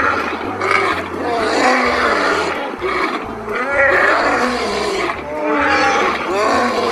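Two male lions roaring together, one long call after another, the pitch swinging up and down.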